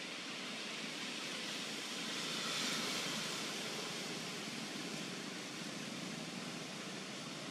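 Steady road-traffic noise, swelling as a vehicle passes about two to three seconds in.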